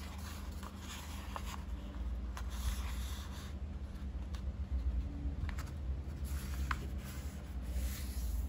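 A sheet of A4 printer paper being folded along its diagonal and creased flat by hand against a tabletop: soft rubbing and rustling with a few small crinkles, over a steady low hum.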